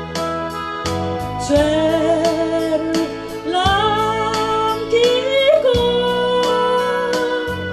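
Live music: a singer sings over instrumental accompaniment with a regular beat. The voice comes in about a second and a half in, slides between notes, and settles on a long held note near the end.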